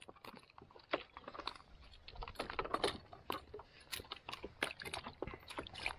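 Quick irregular clicks and light taps as a small oblada (saddled seabream) is handled and unhooked by hand on a paddleboard deck, the hook deeply swallowed.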